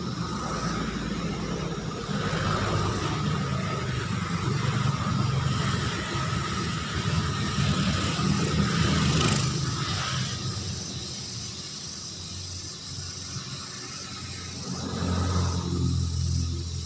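Motor vehicles passing: a steady low engine rumble, with one vehicle swelling and fading about nine seconds in and another coming up near the end.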